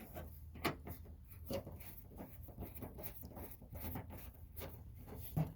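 Faint, irregular clicks and scratchy scrapes of a hand tool working a screw on a car's headlight fixture and the plastic around it.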